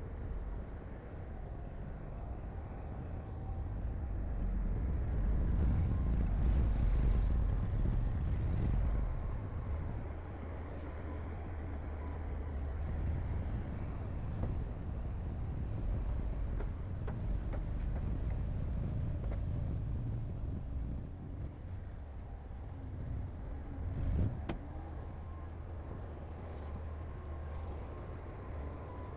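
Heavy diesel earthmoving machinery at work, a bulldozer and dump trucks, with a steady low engine rumble. The rumble swells louder for a few seconds early on, and there is a single sharp knock later.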